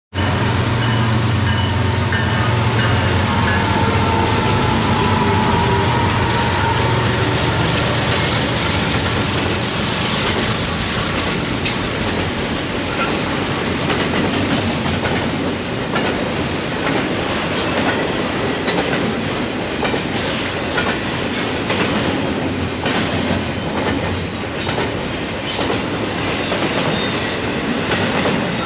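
Freight train passing close by. For the first several seconds the diesel locomotives' engines run with a deep steady drone, then the freight cars roll past with a continuous rumble and irregular wheel clicks and rattles over the rails.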